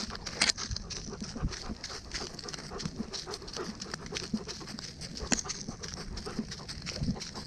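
A dog panting close to the microphone, with irregular small clicks and rustles from its steps.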